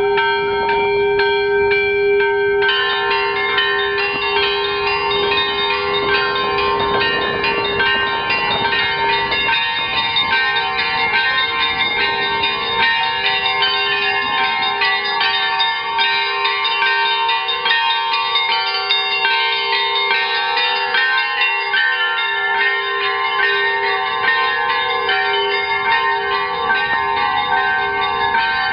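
Bells ringing in a continuous peal, many bells sounding together at different pitches. More, higher-pitched bells join about three seconds in.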